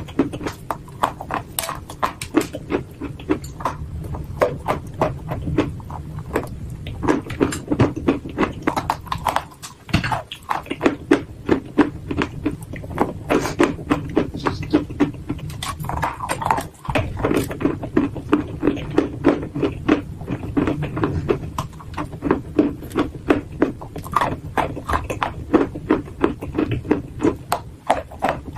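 Dry clay being chewed and crunched between the teeth: a quick, steady run of crisp crunches, about three a second, with a bite into a fresh piece near the end.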